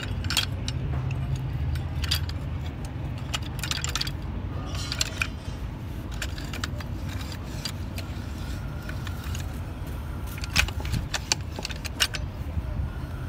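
Steel gearbox parts clicking and clinking against each other as the gear stack and shift forks are fitted together by hand. The clicks are irregular, with the loudest run of them near the end, over a steady low hum.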